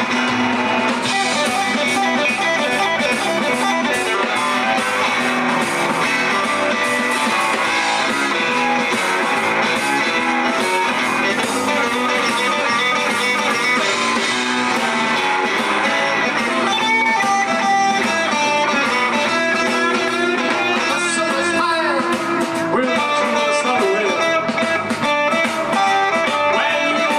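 Live blues band playing an instrumental passage, with electric guitar to the fore over bass and drums; guitar notes bend in pitch partway through.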